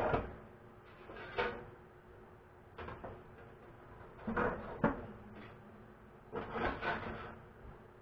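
Toaster oven's wire racks being slid along their rails, scraping and rattling in several short bursts with pauses between.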